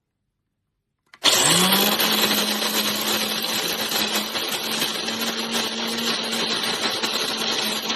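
Cuisinart DBM-8 electric burr coffee grinder's motor starting about a second in, its hum rising quickly to a steady pitch, then running steadily with a loud whirring.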